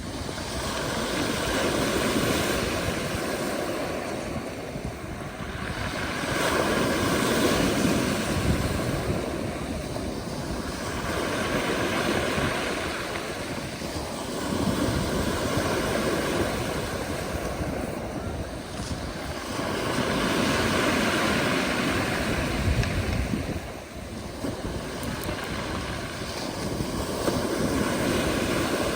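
Black Sea surf: waves breaking and washing up the shore, swelling and falling back every four to six seconds.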